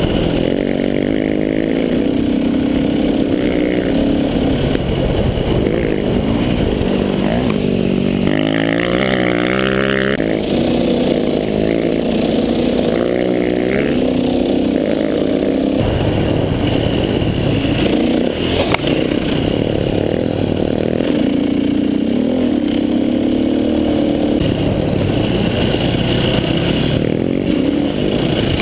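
KTM dirt bike engine running hard through sand, its pitch rising and falling repeatedly as the throttle opens and closes.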